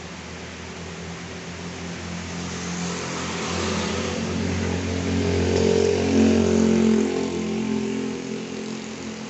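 A motor vehicle passing by: its engine hum grows louder over several seconds, peaks a little past the middle, then fades away, over a steady hiss of heavy rain.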